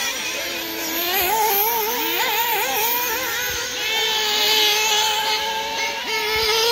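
Several 1/8-scale nitro RC buggy engines racing together, their high-pitched notes rising and falling with the throttle. The notes hold fairly steady for a couple of seconds in the second half.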